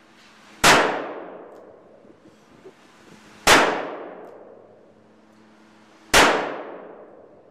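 Three shots from a Smith & Wesson Model 10 .38 Special revolver, about two and a half to three seconds apart, each trailing off in a long echo.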